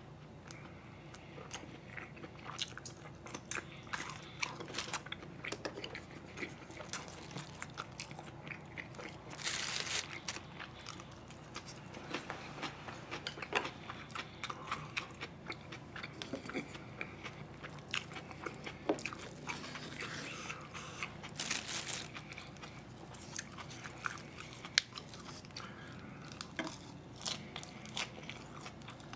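Close-miked chewing and biting of food, with many small wet mouth clicks. Two short, louder bursts of rustling noise come about ten seconds in and again about twenty-two seconds in.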